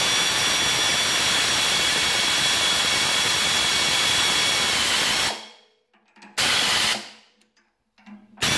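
Pneumatic ratchet running steadily with a high whine for about five seconds and stopping, then two short bursts, as it drives jacking bolts into the bushing to push it off the fan pulley.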